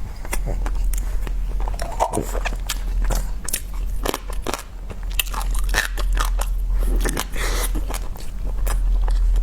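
Close-miked eating: a person biting and chewing food, with crunchy bites and wet mouth clicks, over a steady low hum.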